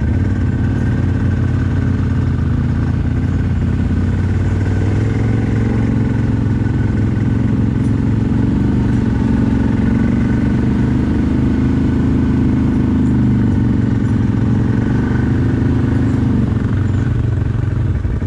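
CFMoto CForce 1000 ATV's V-twin engine running, its pitch rising and easing gently with the throttle.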